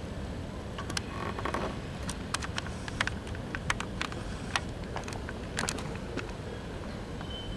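Steady low rumble of a passing Union Pacific freight train's cars, with a scatter of sharp, irregular clicks and knocks over it.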